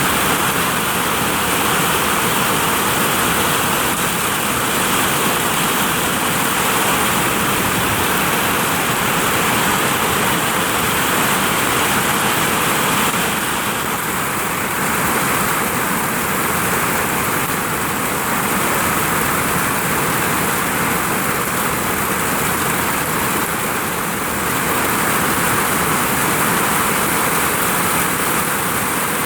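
Heavy rain falling on a vinyl roof: a loud, steady rush of water that eases slightly for a couple of seconds about halfway through and again later on.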